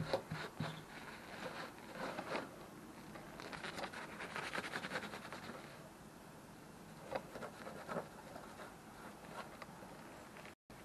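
Irregular scratching and crackling as a gloved hand picks and rubs at flaking rust on a car's rotten rear sill. The scratching is busiest in the first half.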